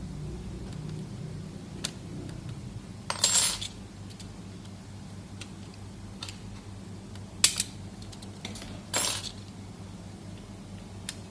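Small metal pieces clinking and rattling on a hard surface: a short rattle about three seconds in, a sharp click past the middle and another short rattle a little later, with a few faint ticks between, over a steady low hum.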